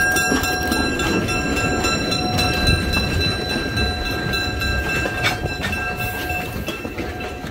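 Train rolling on the track: a low rumble with scattered clicks and knocks from the wheels. Several steady high-pitched tones ring over it and die away near the end.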